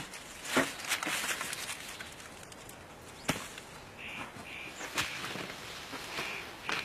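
Scattered sharp snaps and clicks, and from about four seconds in a bird calling in a quick series of short notes.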